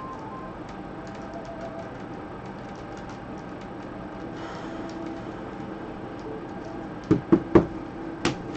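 Cards and boxes being handled on a tabletop: three quick knocks about seven seconds in, then a sharp click, over a low steady background hum.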